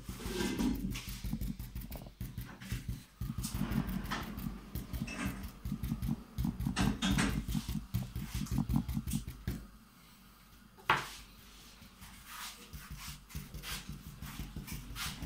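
Paint being dabbed onto a canvas: soft, irregular pats and taps with some handling rumble, and one sharp click about two-thirds of the way through.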